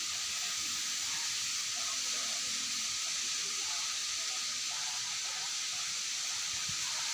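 Steady high-pitched hiss with a thin steady whine running through it, unbroken throughout, with faint scattered chirps or distant voices underneath.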